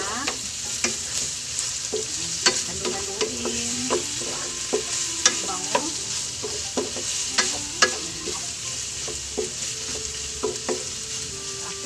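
Pork belly cubes and tomato sizzling in their own rendered fat in a frying pan. A wooden spatula stirs them, knocking and scraping against the pan many times.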